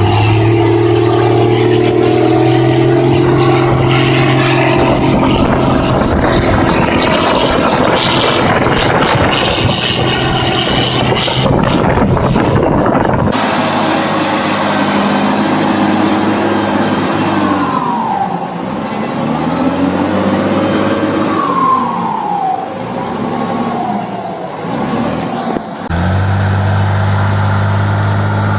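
Wheel loader's turbocharged diesel engine running loud, its turbo pressure turned up. The engine note rises and falls repeatedly through the middle of the stretch, and the sound changes abruptly twice where the recording is cut.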